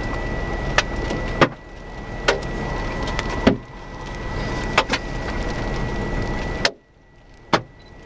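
Storm wind rushing over the microphone, broken by sharp knocks every second or so; the rush drops away suddenly twice, each time right after a knock. A faint steady high whine runs underneath.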